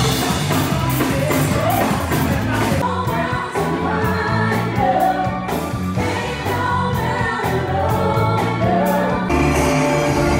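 Live band music with vocalists singing over bass and drums, loud and continuous; the music changes abruptly about three seconds in, as one performance cuts to another.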